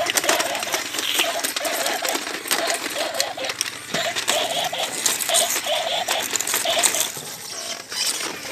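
Battery-operated walking toy animals running, their plastic gearboxes clicking and rattling, with a short electronic toy sound repeating about twice a second until near the end.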